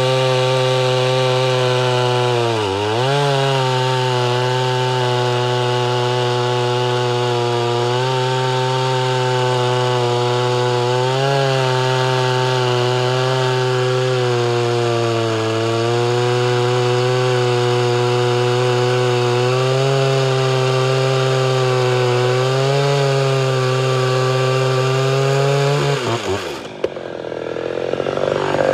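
Ported Homelite Super XL Auto two-stroke chainsaw running at full throttle while cutting through a large round log, its pitch dipping briefly about three seconds in and wavering slightly under load. Near the end the cut finishes and the engine note drops away.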